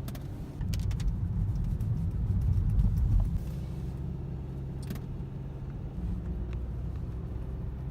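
Car engine and road rumble heard from inside the cabin: a steady low drone that swells over the first three seconds and then settles, with a few faint clicks.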